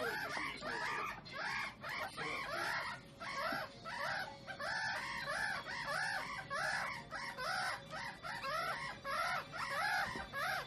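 A group of meerkat pups calling: a continuous chorus of short, high peeps that rise and fall, several a second and overlapping.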